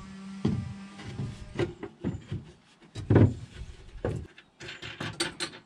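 Plywood panels knocking and bumping against a wooden cabinet frame as they are fitted: a string of separate thumps, the loudest about three seconds in, then a quick run of light clicks and taps near the end.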